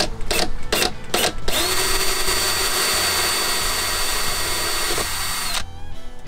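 Cordless drill with a 1/8-inch bit boring a pilot hole into the fiberglass boat dash. A few quick trigger blips start it, then it runs steadily with a level whine for about four seconds and stops sharply near the end.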